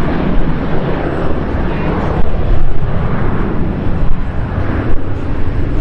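A Boeing 737 airliner's jet engines running loudly as it rolls along the runway: a steady, deep, noisy roar with no clear whine.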